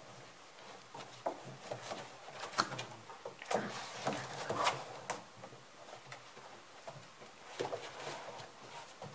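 Puppies scrabbling and bumping about inside a hollow plastic tunnel: irregular knocks, taps and scrapes of paws and bodies on the plastic, busiest in the middle.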